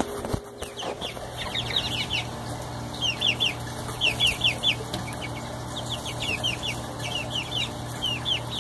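Four-week-old chicks peeping: runs of short, high, falling cheeps, several a second, coming in clusters. A steady low hum sits underneath, and there is a single soft knock just after the start.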